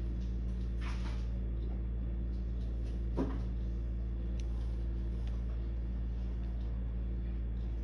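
Steady low hum on an open speakerphone line during a wordless wait. Faint clicks are scattered through it, with one brief knock about three seconds in.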